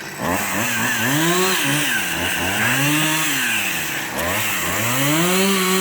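Chainsaw revving up and down about three times, its pitch rising and falling, then climbing and holding at high revs near the end.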